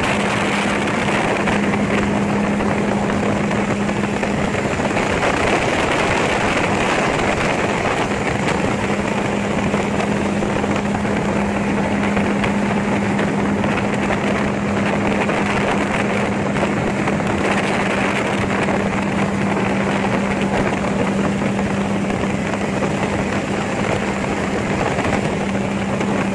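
Gyrocopter engine and propeller running steadily in cruise flight, a constant drone with a steady low hum, mixed with the rush of wind heard from the cockpit.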